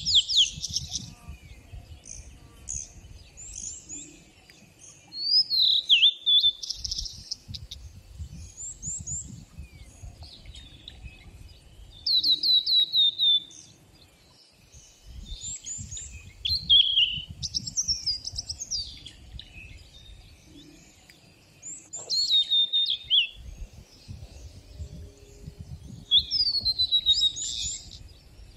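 Songbirds singing: loud phrases of quick rising and falling whistles and trills, one about every five seconds, with softer chirps in between.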